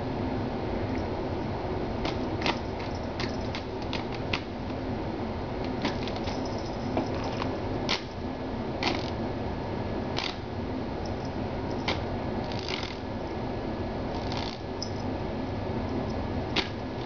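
Small electric desk fan running with a steady whir, while a kitten's paws bat at its plastic housing in irregular clicks and taps, some close together, others a second or more apart.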